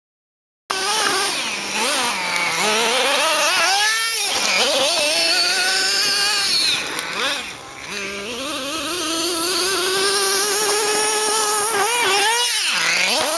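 Kyosho DST nitro RC buggy's small glow-fuel engine running hard and revving up and down as it drives. Its high buzzing pitch drops sharply and climbs back about four seconds in and again near the end.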